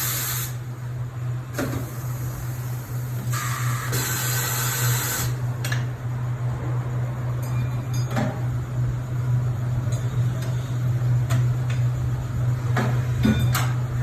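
Tire-change shop work: a steady low hum, a burst of air hissing lasting about two seconds a few seconds in, and scattered clanks and clicks of tools.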